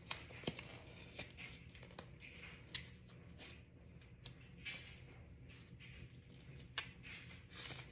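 Thin disposable plastic gloves being worked onto the hands: faint crinkling and rustling with scattered light clicks.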